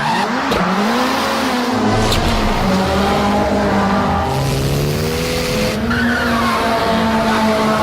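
Ken Block's Ford Fiesta rally car engine revving hard, its pitch swinging up and down several times as it is driven and shifted, with tyres squealing under the noise.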